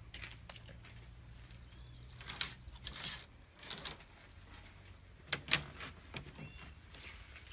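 A few short rustles and knocks from food being handled and eaten by hand from a bowl on a woven bamboo floor, over a faint steady hum. The loudest knock comes about five and a half seconds in.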